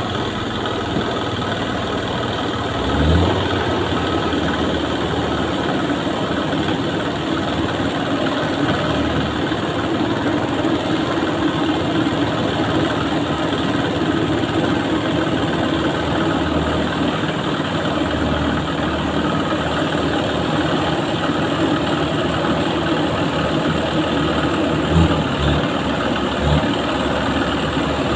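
Truck engine running steadily at low revs, with a few short low thumps about three seconds in and again near the end.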